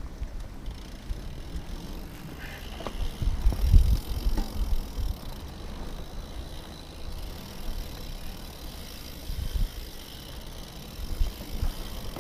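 Mountain bike rolling over rocky dirt singletrack, its tyres crunching and its parts knocking and rattling over bumps. Uneven wind rumble on the microphone underlies it, strongest about four seconds in.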